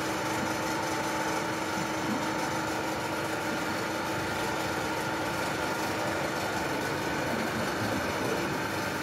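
Steady machinery hum, a motor running without change, with several steady tones over a rushing noise.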